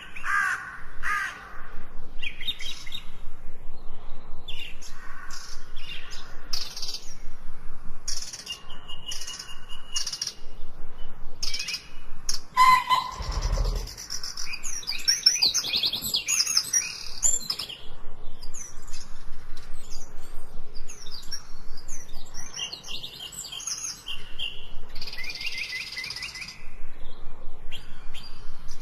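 Several birds chirping and singing in quick overlapping calls, with a harsher, caw-like call at the start. There is a single low thump about halfway through.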